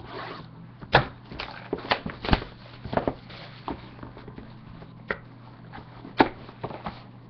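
Hands unwrapping and handling a sealed cardboard trading-card box on a tabletop: crinkling wrapper noise and a series of sharp knocks and taps, loudest about a second in and again near the end.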